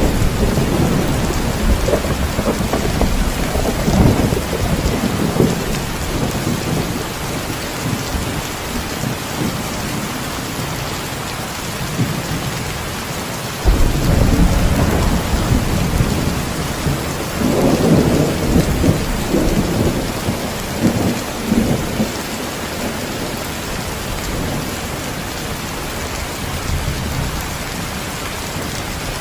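Steady heavy rain with rolling thunder. Low rumbles swell in the first few seconds, then a sudden thunderclap about 14 seconds in rolls on for several seconds before the rain alone continues.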